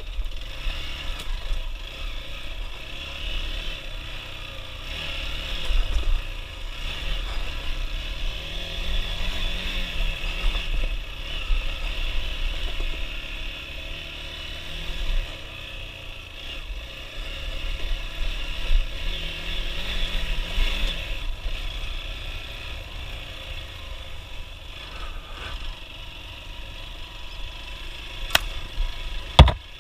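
Motorcycle engine running while riding, its pitch rising and falling with the throttle, over low wind rumble on the microphone. A sharp knock near the end.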